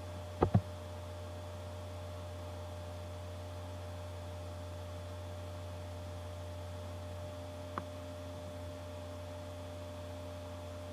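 Steady low electrical mains hum with a few faint steady tones above it, broken by two short clicks about half a second in and one lighter click near eight seconds.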